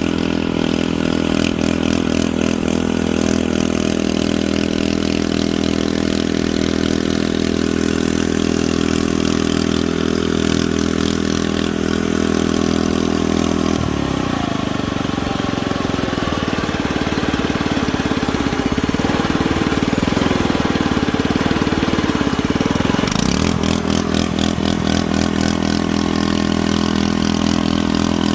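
Engine sound from a model Cat D11 bulldozer, idling steadily. From about halfway through for roughly nine seconds it changes to a busier, wavering sound, as if working under load, then settles back to idle.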